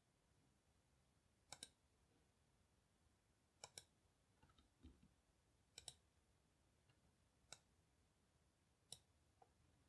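Faint, sharp clicks of a computer mouse, spaced a second or two apart, some in quick pairs.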